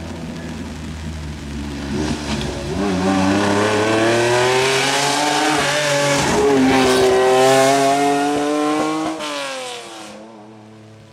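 Historic rally car passing at speed. Its engine note climbs in pitch as it approaches and is loudest a few seconds before the end, then drops sharply in pitch and fades as it pulls away.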